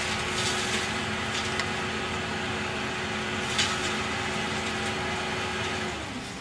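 Road-rail excavator's engine and hydraulics running, with a steady whine and a few scattered clicks and rattles. Near the end the whine drops in pitch and the sound gets quieter.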